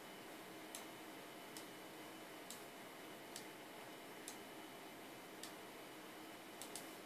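Sharp, faint clicks about once a second, unevenly spaced with two close together near the end, over a steady low hiss.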